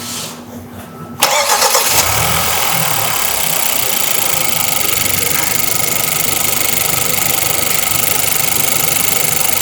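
Freshly installed replacement 2.0-litre turbo four-cylinder engine in a 2013 Hyundai Santa Fe Sport starting for the first time: it catches suddenly about a second in and settles into a steady idle.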